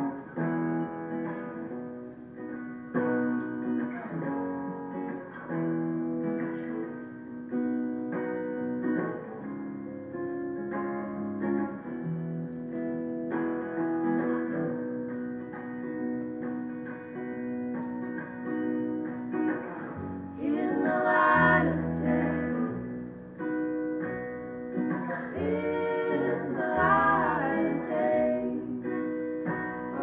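Folk band playing: plucked guitar and banjo picking a steady pattern. About twenty seconds in, deep bass notes come in and women's voices start singing.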